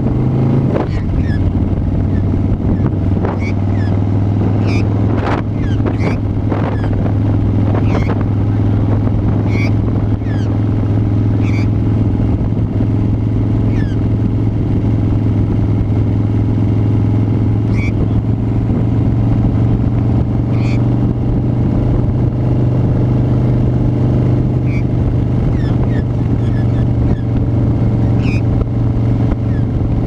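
Harley-Davidson V-twin motorcycle engine running steadily at a constant cruising speed.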